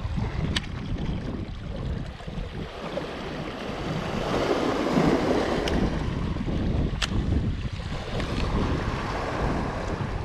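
Small waves washing and breaking over shoreline rocks, with wind rumbling on the microphone; the wash swells louder about four to six seconds in. A few sharp clicks stand out, three in all.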